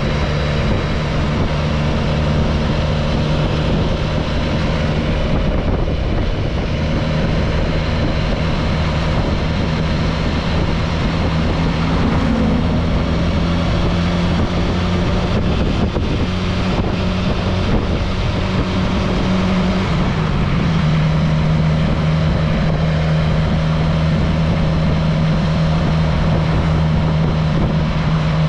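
An engine running steadily throughout, with a constant pitched hum. About twenty seconds in its pitch dips slightly and settles at the new speed.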